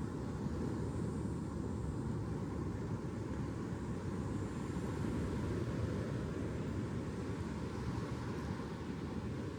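A steady, unbroken low rumble of noise, with no distinct events or changes.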